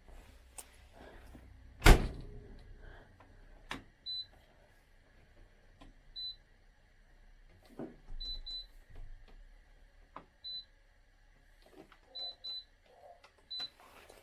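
Short high beeps from a Zanussi IZ 16 S washing machine, eight of them at uneven intervals, some in quick pairs, among light clicks. One loud knock comes about two seconds in.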